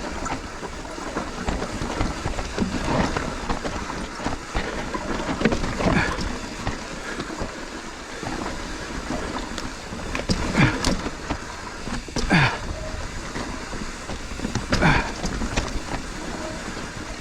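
Mountain bike rolling over rough, rocky singletrack: tyres on rock and dirt with the bike rattling and knocking steadily, and a rider's short grunts now and then.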